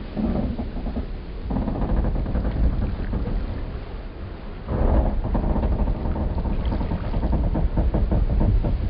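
Wooden boats and pier timbers creaking and groaning, swelling about a second and a half in and again more strongly near five seconds, over a constant low rumble.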